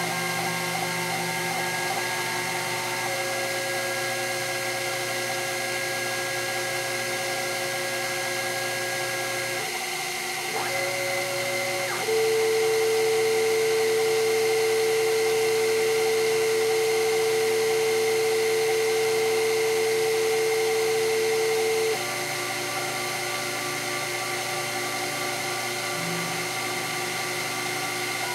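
Sherline CNC mill machining Delrin with its rotary axis turning: a steady whine of the spindle and stepper motors, with held pitched tones that change every few seconds as the moves change. A louder steady tone holds for about ten seconds in the middle.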